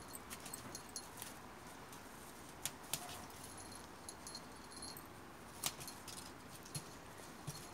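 Kittens pouncing and batting at a feathered toy dangled on a string: faint scattered clicks, taps and scratches from paws and claws on the plastic tarp and tile, with a light jingle now and then.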